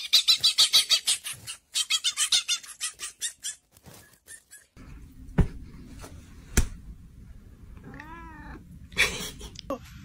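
A dog, head thrown back, gives a fast run of high-pitched yips for about four seconds. Then come two sharp knocks, and a cat meows once, briefly, near the end.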